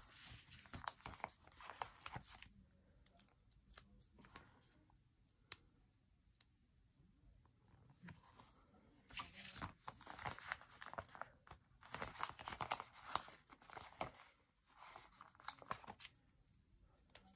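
Planner stickers being peeled off their backing sheet and pressed onto paper pages: faint papery rustling and crinkling in several short bouts, with small ticks in between.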